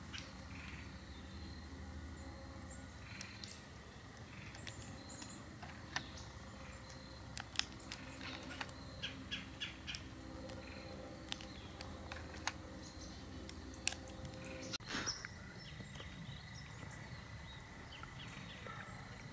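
Faint outdoor ambience with occasional short bird chirps and scattered small, sharp clicks.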